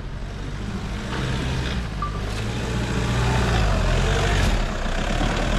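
Diesel engine of an old Toyota Fortuner running under load as it climbs a rutted sandy slope, growing louder toward the end.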